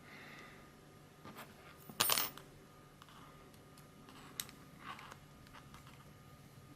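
A few small hard clicks and taps of small parts and tools being handled during assembly, the loudest a short double click about two seconds in.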